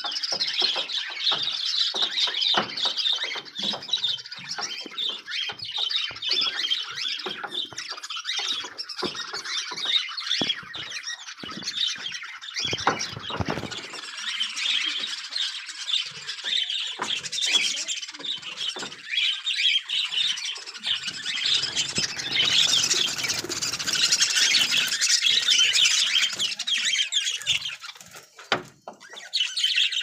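A flock of caged love birds (small parrots) chattering and screeching without pause, with short flaps of wings, the chatter growing louder and busier towards the end.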